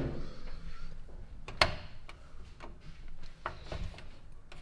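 A few sharp clicks and knocks of kitchen things being handled while getting ready to cook, the loudest about a second and a half in.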